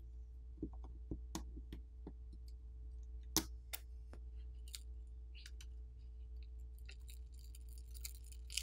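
Faint, scattered light clicks and taps of hands handling the opened-up Google Pixel Fold as its battery is pried out, with one sharper tap about three and a half seconds in. A steady low hum sits underneath.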